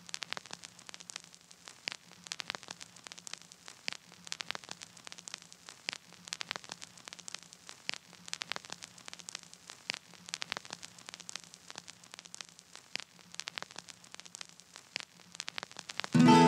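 Crackling static: sparse, irregular clicks and pops over a faint low hum. Near the end, guitar-led band music starts abruptly.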